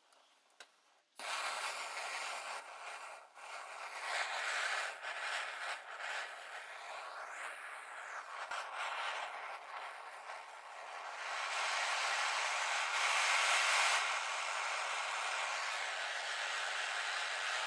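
Vintage brass Max Sievert blowlamp soldering iron: its burner catches about a second in and then burns with a steady hiss, growing louder around eleven seconds in and holding there.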